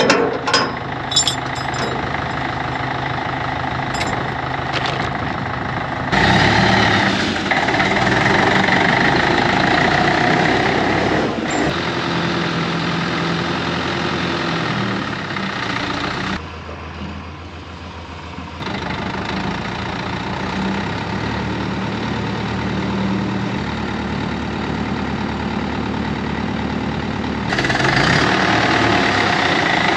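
Old International 554 tractor's engine running at a steady idle-like note, with a few sharp clicks in the first second. It gets louder about six seconds in, drops for a couple of seconds in the middle, and rises again near the end.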